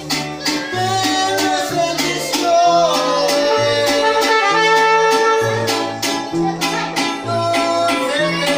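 Mariachi ensemble playing: a guitarrón thumps out a bass alternating between two notes on the beat under rhythmically strummed guitars, and a held melody line comes in about two and a half seconds in.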